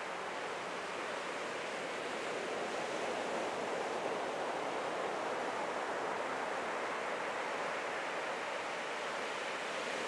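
Ocean surf, waves breaking and washing up the sand in a steady rush of noise.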